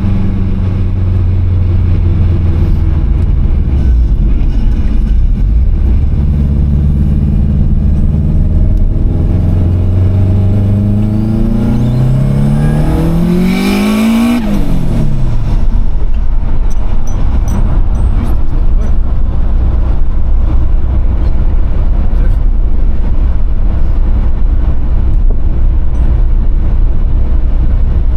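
Turbocharged Subaru WRX flat-four engine cruising, then accelerating hard with its pitch rising for a few seconds. About halfway through, the throttle is lifted: the engine note falls sharply and the turbo flutters briefly, compressor surge with no blow-off valve and a 3-inch intake pipe. Steady driving noise of road and wind follows.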